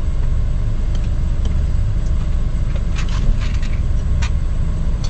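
Steady low rumble of a vehicle driving on an unpaved dirt road, heard from inside the cabin, with a few short clicks about three to four seconds in.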